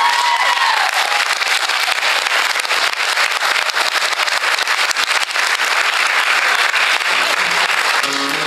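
Concert audience applauding and cheering as a song ends, with a whoop in the first second.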